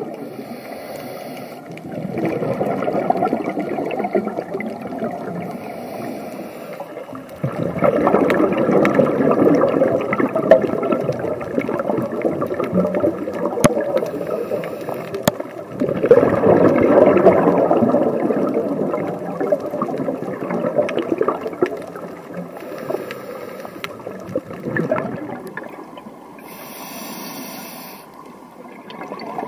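Scuba diver breathing underwater through a regulator: long swells of bubbling from each exhalation, several seconds each, alternating with short hissing inhalations about every seven or eight seconds.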